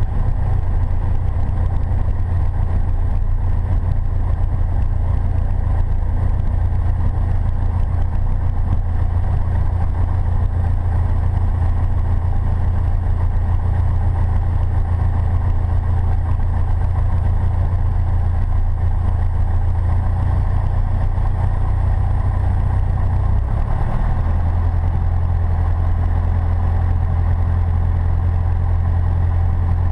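Light aircraft's engine and propeller running at taxi power, heard from inside the cockpit: a loud, steady low hum whose note shifts slightly about two-thirds of the way through.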